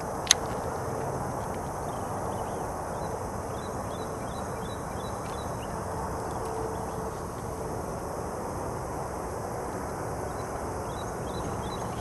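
Steady outdoor background noise, with one sharp click just after the start and faint, short, high chirps through the middle.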